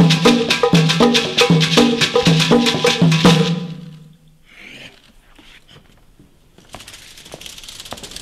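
Afro-Cuban hand drums playing a fast rhythm of sharp strikes and repeated pitched tones, stopping about three and a half seconds in. A faint steady hiss follows near the end.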